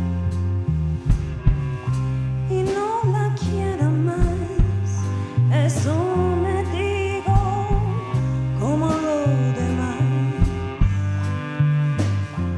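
Live band playing a song: a singing voice in long, wavering phrases over bass guitar, drum kit and guitar. The voice drops out near the end while the band plays on.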